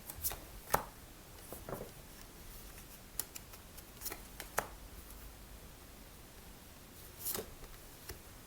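Tarot cards being handled and shuffled: scattered soft snaps and short rustles of card stock, a few seconds apart.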